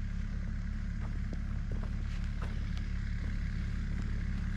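Excavator engine running steadily at idle, with a few faint clicks and knocks over it.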